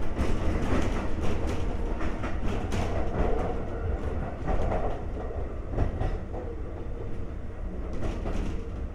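Konan Railway 7000-series (ex-Tokyu 7000) electric railcar running, heard from inside the car: a steady rumble of wheels on track with irregular clicks and knocks from the rail joints.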